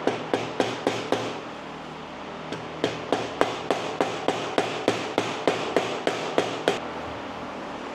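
Rubber mallet tapping a seal driver to drive a new crankshaft front seal into a GM Ecotec timing cover. There are a handful of taps, a short pause, then a quick steady run of about four taps a second, ending a little before the last second.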